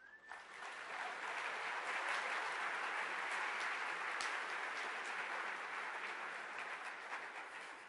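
Audience applauding, swelling about half a second in and tapering off near the end.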